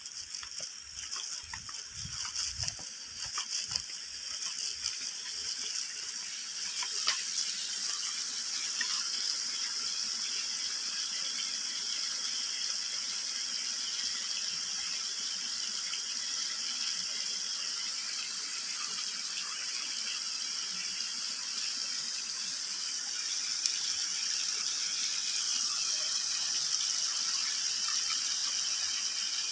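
Water pouring in streams from pipe spouts at a spring and splashing onto the rocks below, a steady rushing splash that settles in after the first several seconds. Low footsteps thud at the start, about two a second.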